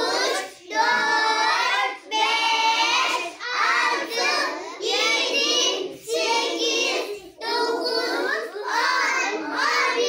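A class of young children chanting the numbers in Turkish in unison, in a sing-song voice, one number about every second.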